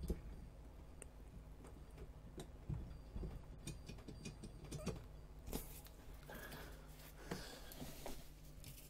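Faint handling noises: scattered light taps and clicks, with rustling in the second half, from a gloved hand working inside a metal electron-microscope column section.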